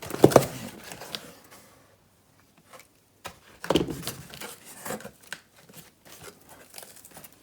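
Cardboard box and packing being handled. There are a couple of sharp knocks just after the start, then a short pause, then rustling and light clicks.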